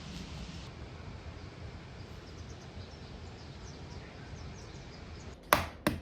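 Quiet outdoor campsite ambience with faint, scattered bird chirps, then two sharp knocks in quick succession near the end.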